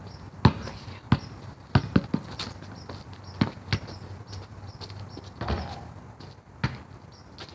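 A basketball bouncing on a hard court: a string of sharp thuds at uneven spacing, about eight or nine in all.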